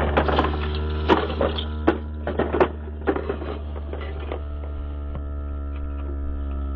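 Small electric motor and plastic gearbox of a toy RC jeep running with a steady hum, with clicks and knocks of the plastic toy on rock as it climbs and tips over; the knocking stops about two-thirds of the way through while the hum goes on.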